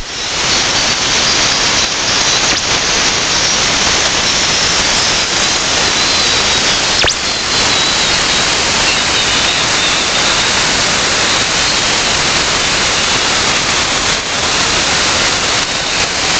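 Shortwave static and hiss from a Perseus SDR receiver left tuned to 6285 kHz after the pirate station's carrier has gone off the air. A faint high whistle drifts slowly lower through the hiss, and there is a single click about seven seconds in.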